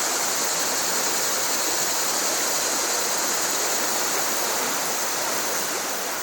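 Mountain river water rushing, a steady even noise of flowing water.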